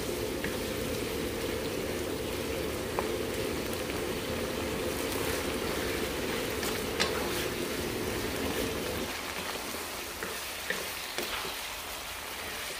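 Coconut-milk curry simmering and sizzling in a wok while a wooden spatula stirs it, with a few light knocks of the spatula on the pan. The bubbling thins out about nine seconds in.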